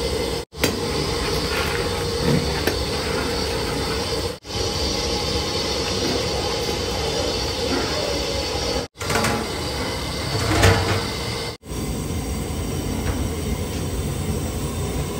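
Steady roar of a large gas burner, with a metal paddle scraping and knocking in a big aluminium biryani pot. The roar cuts out briefly several times.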